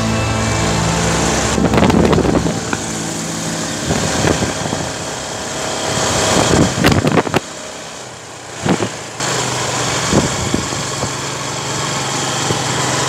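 Motorbike engine running steadily, with wind noise on the microphone. Past the middle the engine tone fades for about a second and a half, then picks up again.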